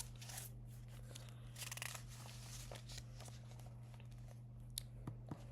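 Faint rustle of a picture book's paper pages being handled and turned, with a few light clicks near the end, over a steady low hum.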